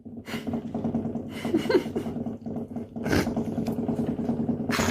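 A domestic cat purring steadily close to the microphone, a fast, even pulsing, with a few short rustles of fur or fabric.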